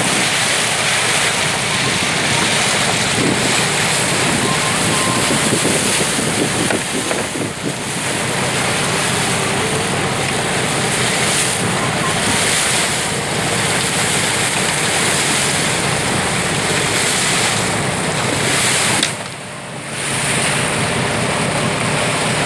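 Steady rush of sea water and wind from a boat under way, with wind buffeting the microphone. The noise drops off briefly for about a second near the end.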